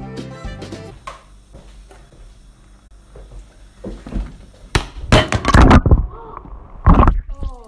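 A clatter of loud knocks and bangs about five seconds in, with another loud bang near seven seconds, as something is knocked over or dropped.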